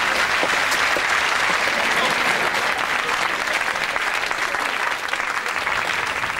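Studio audience applauding, a dense steady patter of many hands that slowly eases toward the end.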